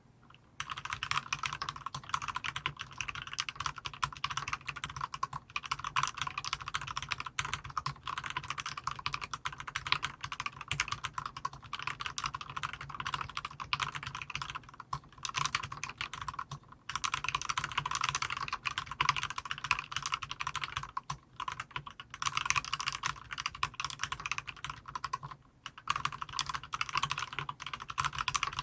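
Typing on an iKBC MF87 mechanical keyboard with its dampening pad removed and EnjoyPBT keycaps fitted: a fast, steady stream of key clacks starting about half a second in, with a few brief pauses.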